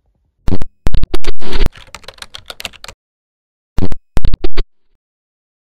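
Loud, distorting clatter of sharp clicks and scraping noise in two bursts: a longer one starting about half a second in and lasting over two seconds, then a shorter one of a few clicks near four seconds in, with dead silence between.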